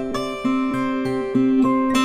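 Background music of plucked acoustic guitar: a steady run of ringing notes, about three a second.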